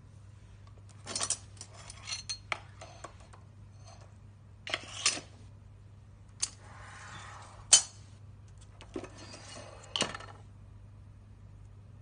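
Steel quick-release duct clamps clinking and rattling against each other in scattered bursts, with one sharp clink a little past the middle louder than the rest.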